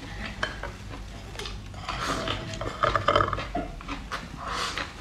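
Chopsticks clicking and scraping against a glass bowl as rice and bean sprouts are shovelled into the mouth, with close-up eating noises. The clicks and scrapes are busiest in the middle.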